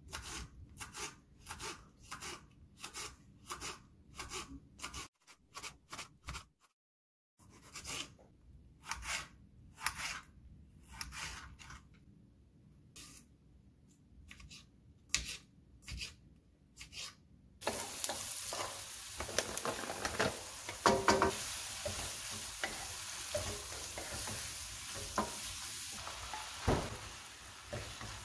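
A kitchen knife chops vegetables on a plastic cutting board in sharp strokes, about two a second at first and more irregular later, with a short silent break. About eighteen seconds in, this gives way suddenly to steady sizzling as rice fries in a hot pan, stirred and scraped with wooden spatulas.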